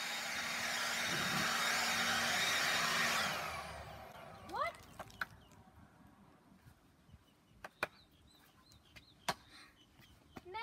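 Battery-powered leaf blower running with a steady whine and rush of air, then winding down and stopping about three seconds in, its battery gone flat. A short rising squeak and a few sharp clicks follow.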